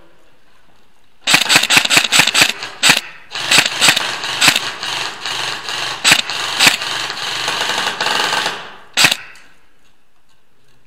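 Airsoft gun firing: a quick string of single shots, then a long full-auto burst of about five seconds, and one last shot near the end.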